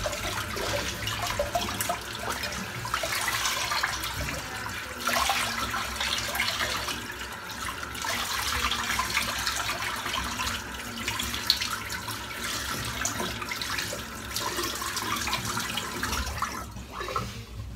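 Bathroom tap running into a sink, with splashing as a freshly shaved head is rinsed off; the water stops near the end.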